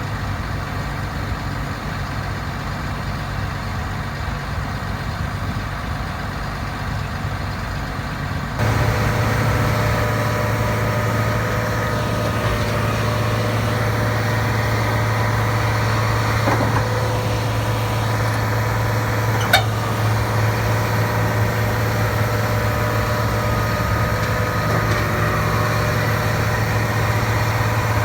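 Caterpillar AP655D asphalt paver's diesel engine running steadily, getting louder about eight and a half seconds in and holding there. A couple of sharp clicks partway through.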